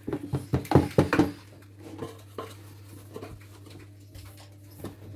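A utensil clinking and scraping against a plastic bowl and container as the kataifi and pistachio mixture is scooped and pressed down. A quick run of knocks comes in the first second or so, then fainter scratching and ticks.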